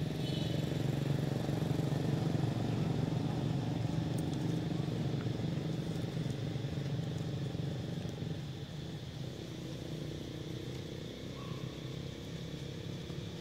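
Steady low motor drone that eases off slightly about eight seconds in, with a brief faint high chirp right at the start.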